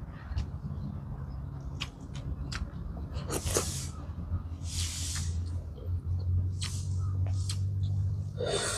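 A person eating close to the microphone: wet chewing and lip-smacking clicks, with a couple of short hissing breaths near the middle, over a steady low hum.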